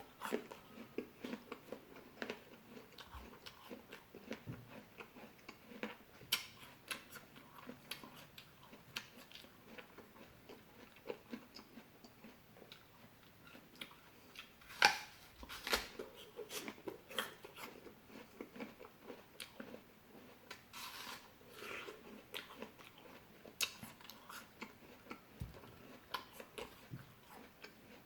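Close-miked chewing and biting of fresh fruit: wet, irregular mouth clicks and crunches, with a few sharper, louder bites along the way.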